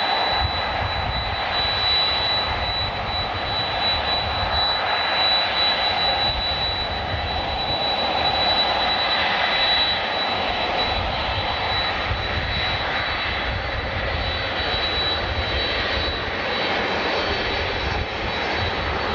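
Jet airliner engines running in a steady, continuous roar with a high, steady whine above it.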